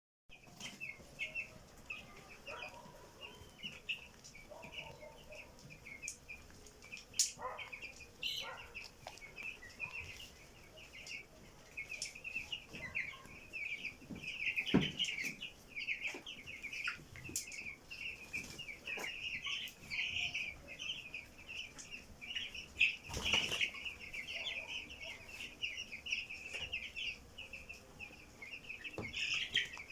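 A flock of chickens with a constant twitter of short high calls, and scattered short, sharp sounds among them, about a dozen, the loudest about fifteen and twenty-three seconds in. These are the chickens sneezing, the complaint their keeper is seeking a remedy for.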